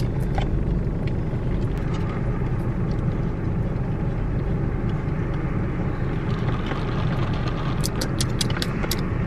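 Steady low rumble inside a car's cabin as the car idles, with a few light clicks near the end.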